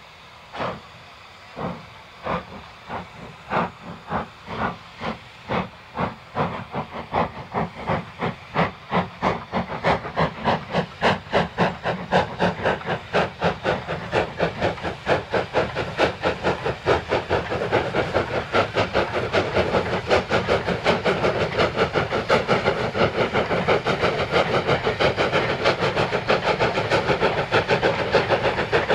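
Exhaust beats of two steam tank locomotives double-heading a passenger train, quickening and growing steadily louder as the train approaches, from about two beats a second to a fast, overlapping beat.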